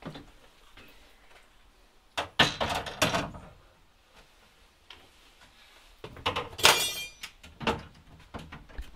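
Metal swivel-seat frame knocking and clanking as it is set down and slid into place on a van's front seat base, in two bursts of clatter: one about two seconds in and another from about six seconds.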